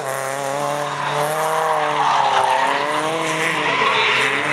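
A drift car's engine revving through a slide, its pitch sagging and then climbing again, with tyre squeal growing louder in the second half as the tyres break loose.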